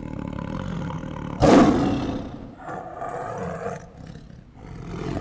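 Tiger roars over a low growling rumble: a loud roar swells about one and a half seconds in and fades, a weaker one follows, and another loud roar begins at the very end.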